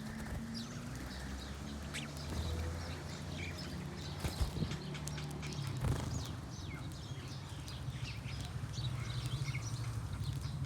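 Many small birds chirping, with short quick calls overlapping throughout, over a steady low rumble.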